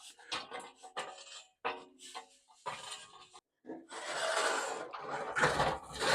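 Metal builder's scaffolding being handled and put together: a string of clanks and knocks, some ringing briefly, then a longer scraping rub that grows louder near the end.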